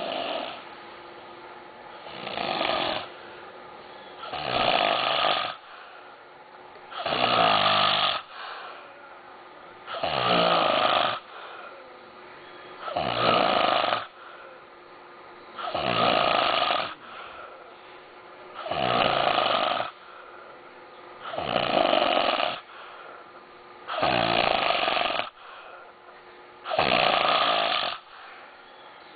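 A man snoring heavily in deep sleep: about ten loud, rasping snores, each about a second long and coming roughly every three seconds, with softer breathing between them. The uploader says the snoring persists even after an operation.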